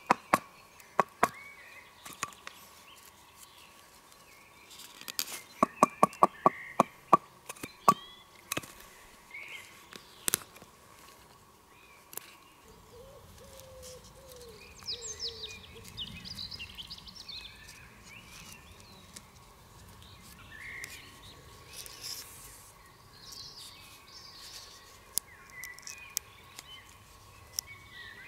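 Sharp wooden knocks of a knife being batoned with a birch log to split birch: a few single strikes at first, then a quick run of about eight strikes, and one more. After that, soft rustling of split birch pieces being handled, with bird chirps.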